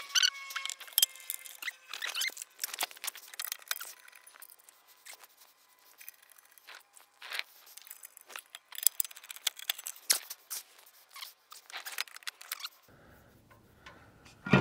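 Scattered light metallic clicks and clinks of bolts and hand tools being handled while jacking-rail bolts are threaded by hand into a car's underbody.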